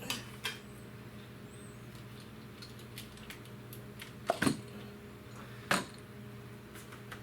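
A few short metallic clinks and clicks from hand tools and engine parts being handled, over a steady low hum. The loudest pair comes a little past four seconds in and another clink near six seconds.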